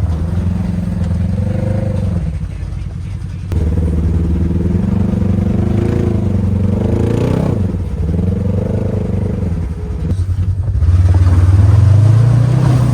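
Side-by-side UTV engine revving up and down as it is driven. The sound changes abruptly twice, about three and a half and eleven seconds in, and is loudest and steadiest near the end.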